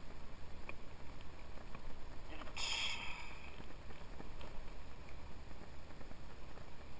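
Faint handling noises as a small fish is taken off a hook by hand, with one brief high-pitched squeak about two and a half seconds in, over a steady low rumble.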